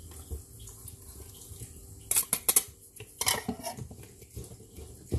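A stainless steel bowl and a wire whisk knock against a mixing bowl as brown sugar is tipped in and whisked into flour. A quick cluster of sharp metallic clinks comes about two seconds in and a few more a second later, with soft scraping between them.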